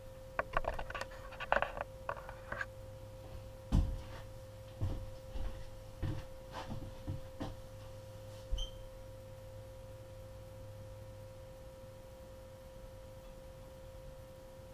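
Scattered clicks, knocks and light clunks of hands working on a dirt bike's carburetor, most of them in the first eight or nine seconds. After that there is only a faint steady hum.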